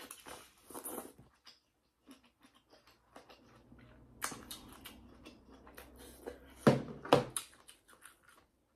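Close-miked eating sounds: wet chewing and smacking of lobster meat, with scattered small clicks and two louder bursts near the end.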